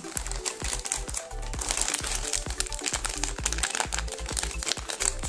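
Crinkling of a foil-lined crisps bag being squeezed and handled in the hands, heaviest from about one and a half seconds in. Electronic background music with a steady beat plays throughout.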